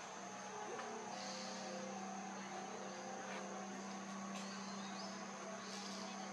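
Outdoor ambience: a steady low hum under a high, even drone of insects, with a few faint soft clicks and rustles.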